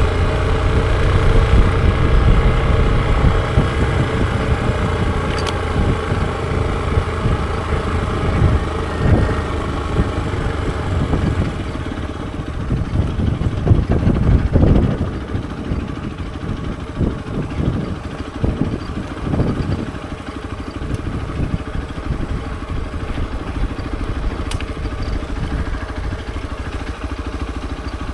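Hero XPulse 200 4V motorcycle's single-cylinder engine running steadily, louder at first and easing off, with rougher low rumbling in the middle.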